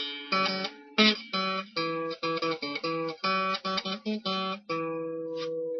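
Acoustic guitar music, quick strummed and plucked chords ending on a held chord near the end.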